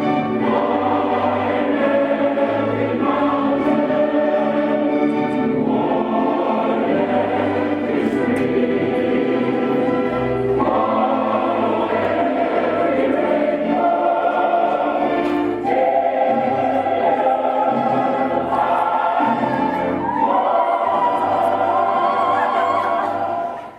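Choral music: a choir singing slow, sustained chords that change every few seconds, fading out right at the end.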